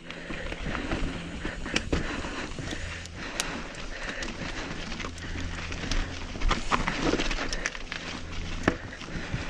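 Continual rattling and knocking of a ride over rough, rocky trail, with many sharp clicks and a steady low hum underneath.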